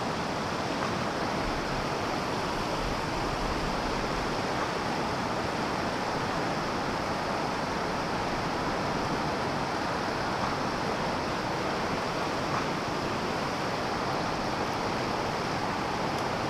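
Shallow creek running over cobbles and riffles: a steady rush of flowing water.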